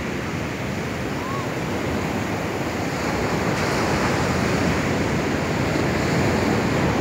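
Heavy sea surf, stirred up by an approaching typhoon, breaking and washing up the beach, the rush growing louder about halfway through as a big wave comes in. Wind on the microphone is mixed in.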